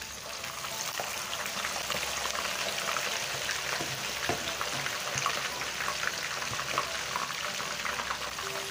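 Raw cocoyam slices going into hot oil from a wire skimmer, the oil sizzling and crackling hard. The sizzle swells over the first second as the slices hit the oil, then holds steady.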